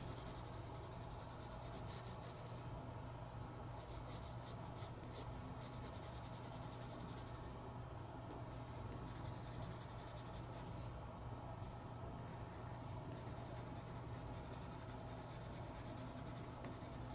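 Graphite pencil shading on sketchbook paper, faint, darkening the shadow areas. The scratching comes in runs of strokes of a second or more, with short pauses between them, over a steady low hum.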